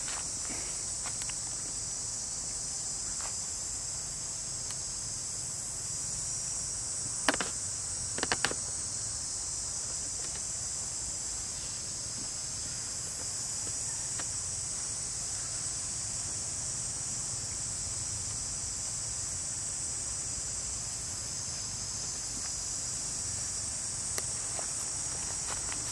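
Steady high-pitched chorus of insects. A short cluster of sharp clicks comes about a third of the way in, and one more faint click near the end.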